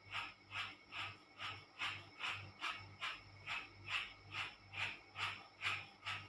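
Kerokan skin scraping: a bottle cap rasped over the skin in quick, even strokes, about two and a half a second.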